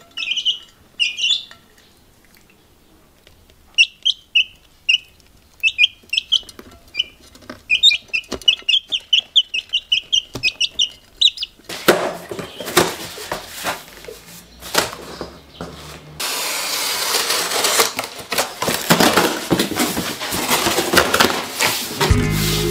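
Young chicks peeping in short high calls, a couple at first and then a quick run of peeps. About halfway through, cardboard rustling, crackling and tearing as a large cardboard carton is cut and pulled open.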